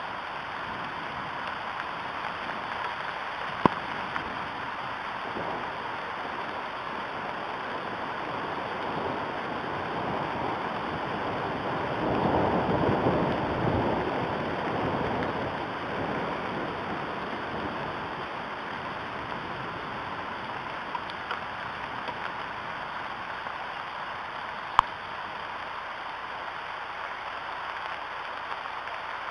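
Steady rain falling on the nest and surrounding trees, a hiss that swells heavier for a few seconds just before the middle. Two single sharp ticks stand out, one a few seconds in and one near the end.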